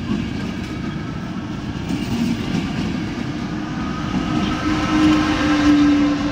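Passenger train rolling past along the platform, its wheels running on the rails. From about halfway the locomotive comes close and a steady hum rises over the rolling noise, loudest near the end.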